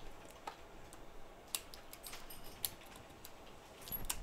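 Scattered small clicks and taps of a precision screwdriver and tiny parts on an opened iPhone 6 as its logic board is taken out. A handful of separate clicks, with a quick cluster of them near the end.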